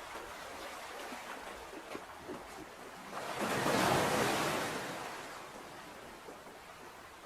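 Ocean waves washing in, a steady seething hiss with one wave swelling up and breaking about halfway through, then drawing back.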